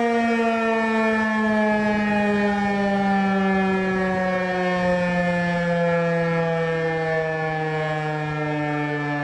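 Emergency warning siren winding down, its single tone sliding slowly lower in pitch.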